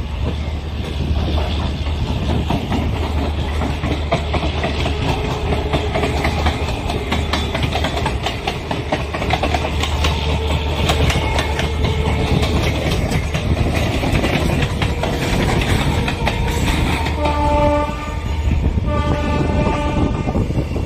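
Passenger train coaches rolling over the tracks, heard from an open coach door: steady rumble with wheels clacking over rail joints and points. Near the end a train horn sounds two short blasts.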